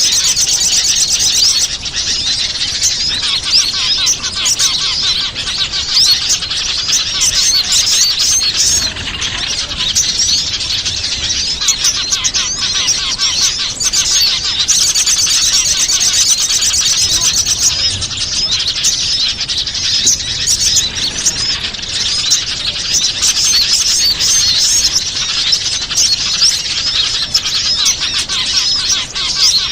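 Bird-lure recording of small wild birds: a dense, continuous mass of quick, high chirps and calls from many birds at once.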